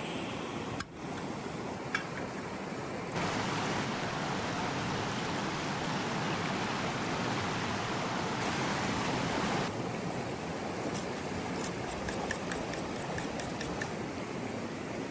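River water rushing steadily, jumping abruptly in level and tone a few times as the shots change. There is a sharp click about two seconds in, and faint quick ticking near the end.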